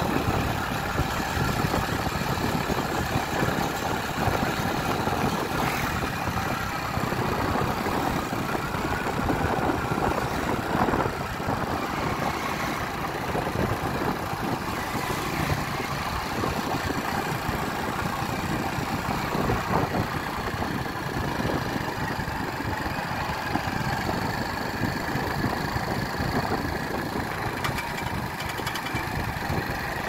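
Motorcycle engine running steadily on the move, mixed with dense, even road and air noise.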